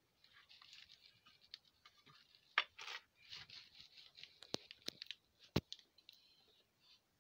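Handling noise from a phone being moved around a workbench: faint rustling and scraping with several sharp knocks, the loudest about two and a half seconds in.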